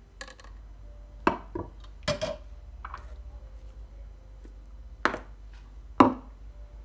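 Kitchenware being handled and set down on a granite countertop: a series of separate sharp knocks and clinks from a glass, a metal milk pitcher and jars. The loudest knock comes about a second before the end.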